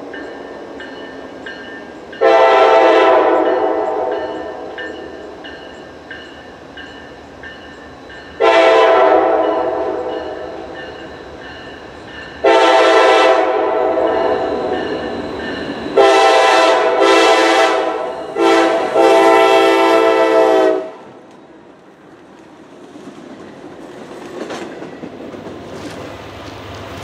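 A diesel freight locomotive's multi-chime air horn sounds a series of blasts: three long ones, then a quick short-long-short-long group that ends about two-thirds of the way through. This is the grade-crossing signal for the approaching train. After the horn stops, the rumble and wheel clatter of double-stack container cars passing close by grow louder.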